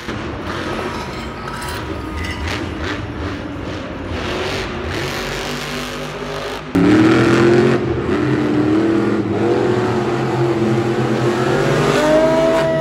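Monster truck engine revving over a noisy arena background. About two-thirds of the way in it gets suddenly louder, its note rising and then holding.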